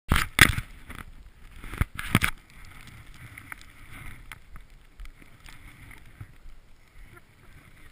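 Two loud bumps and rubs of camera handling in the first two seconds, then low wind rumble on the microphone with a few small clicks from gloved hands working ski poles.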